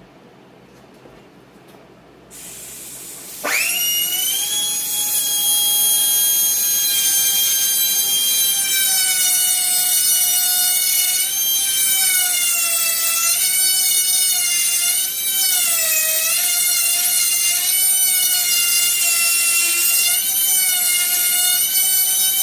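High-speed rotary grinding tool starting up about three seconds in and whining steadily, its pitch dipping and wavering as the bit bears on the work. It is grinding the inside of an Echo CS-7310 chainsaw carburetor to open up and smooth the venturi.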